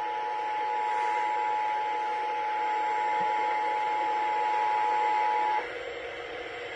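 Emergency Alert System attention signal: two steady tones sounding together over a hissy radio broadcast. It cuts off about five and a half seconds in, leaving radio hiss.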